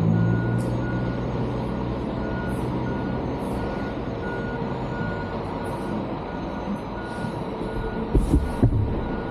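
Steady electronic beeping, about one and a half beeps a second, like a vehicle's reversing alarm, over the low running of the Ducati Diavel 1260 S's V-twin engine, which is strongest in the first second or so and then fades. A few low thumps near the end.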